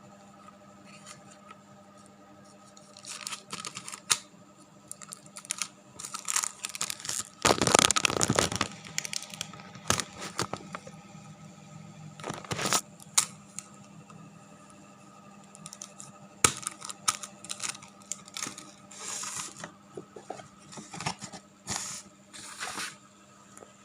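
Close handling noises: scattered short rustles and scrapes, with one longer, louder stretch about eight seconds in, over a steady low hum.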